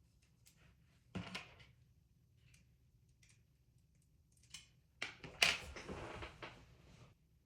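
Clicking and rattling of 3D-printed plastic toy-pistol parts being handled and fitted together. There is a short clatter about a second in, then light ticks, then a louder, longer spell of clicking near the end.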